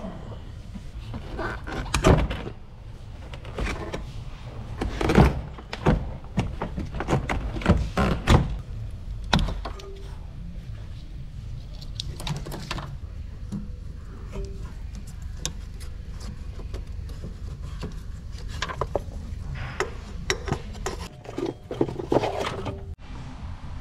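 Clicks, knocks and rattles of car parts being handled in an engine bay: a rubber air intake hose and its plastic clips being pulled free and a wire loom being unclipped. Several sharp knocks stand out among the lighter clicks, over a steady low hum.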